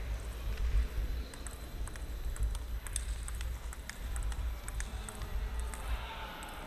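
Table tennis rally: the ball clicks in quick, irregular succession off the bats and the table for about four seconds, over a steady low hum of the hall.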